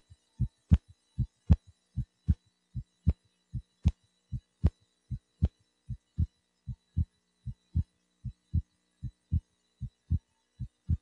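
Heart sounds heard through a stethoscope over the pulmonic area: a steady lub-dub, two short thumps per beat at about 75 beats a minute. This is the site where splitting of the second heart sound with breathing is judged.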